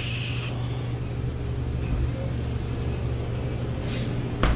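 Steady low hum of grocery-store background noise, from refrigerated cases and a shopping cart on the move, with one short knock near the end.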